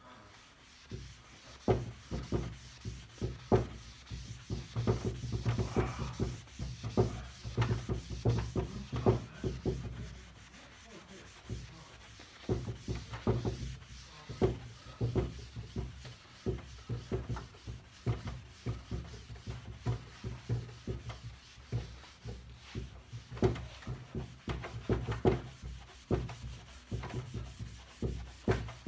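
A hand-held buffing pad rubbed back and forth over a waxed pine tabletop, a quick run of scuffing strokes. The strokes ease off for a moment about ten seconds in, then carry on.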